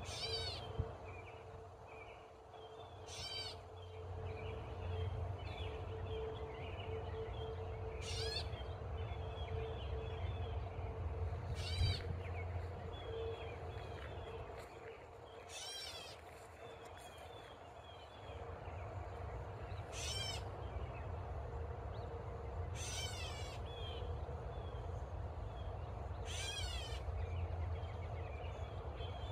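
Catbird squawking: a cat-like mew repeated eight times, one call every three to four seconds.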